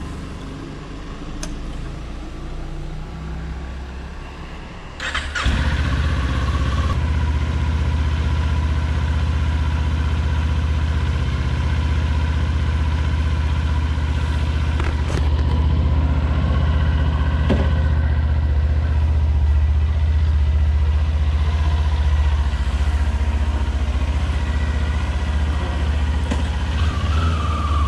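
Kawasaki Ninja 400's parallel-twin engine cranked and started about five seconds in, then idling steadily.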